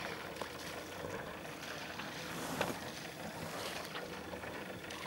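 Faint ambience on calm water: a low, even hiss with a few light ticks, one about half a second in and another a little past the middle.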